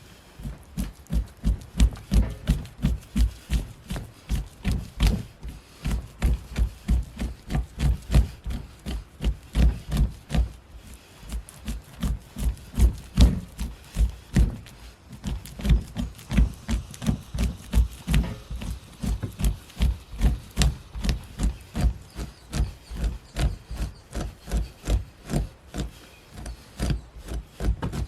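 An animal hide being fleshed on a wooden beam: a scraper is pushed along it in steady, rhythmic strokes, about two a second, each a dull rubbing scrape. It is taking the membrane off the flesh side of the hide.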